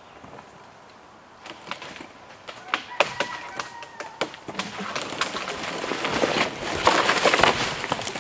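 Dead cherry tree cracking and snapping at its cut as it is pulled over by rope, then crashing down through the surrounding branches in a rising rush of snapping and rustling that is loudest near the end.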